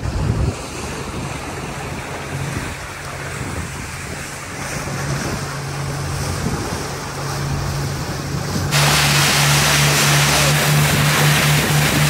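Passenger speedboat running fast on a river: a steady engine drone under rushing water and spray from the wake, with wind buffeting the microphone. About two thirds of the way through, the rush of wind and water jumps suddenly louder and stays up.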